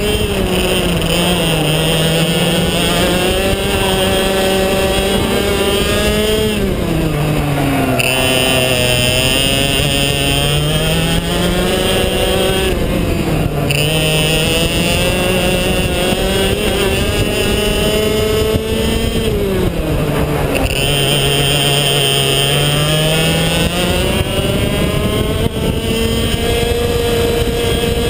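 IAME X30 two-stroke kart engine at racing speed, heard from on board. Its pitch falls as the driver lifts for the corners and climbs again on the throttle, several times over.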